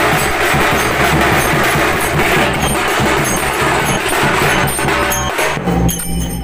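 Live folk percussion from two-headed barrel drums and small hand cymbals playing a fast, dense rhythm that stops abruptly about five seconds in; a steady low tone begins just after.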